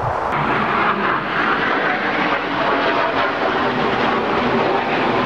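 A steady roar of distant engine noise, like highway traffic or an aircraft, loud and unbroken.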